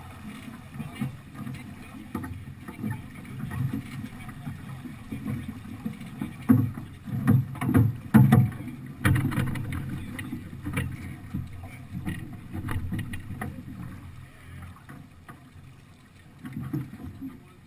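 Wind rumbling on a GoPro Hero2's microphone aboard a sailing yacht under way, with water noise along the hull. A cluster of sharp knocks from gear or crew on deck comes in the middle and is the loudest part.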